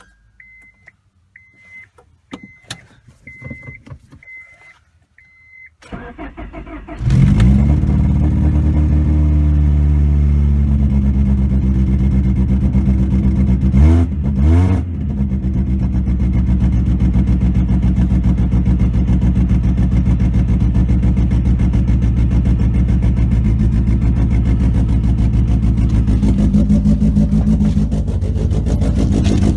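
A car's warning chime beeps about six times, then a Honda H22A four-cylinder engine cranks briefly and catches on a cold start. It settles into a steady fast idle, with a couple of quick revs about halfway through.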